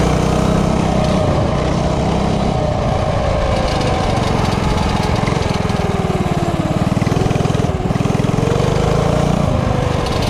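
Mini bike's Tillotson 212cc single-cylinder four-stroke engine running under way at speed. Its pitch sags through the middle, dips lowest about two-thirds of the way through, then climbs again.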